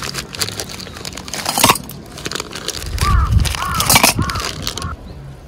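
Ice cubes clicking and crackling in cups as a drink is poured from a plastic bottle over them. About three seconds in, three short rising-and-falling cries sound over it.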